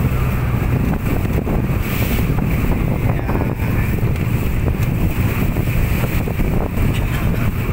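Steady low rumble of a motor boat under way, with wind buffeting the microphone and water rushing past the hull.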